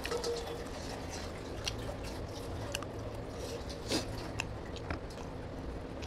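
Wet chewing and mouth sounds of someone eating rice and mutton curry by hand, with fingers squishing the rice. Scattered small clicks and smacks, the loudest about four seconds in, over a steady low hum.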